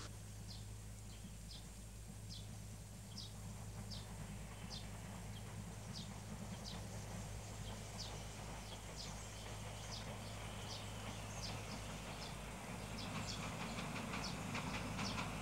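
Steam train approaching, a low rumble that grows steadily louder. Short high chirps or squeaks repeat about once a second over it, coming faster toward the end.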